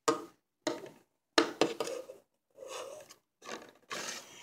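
Shiny metal pan handled and shifted against a wooden tabletop: a string of short rubbing and scraping noises with brief gaps between them.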